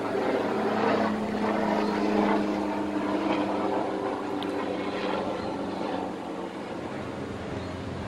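A motor engine droning steadily, a hum of several held tones, easing off after about six seconds.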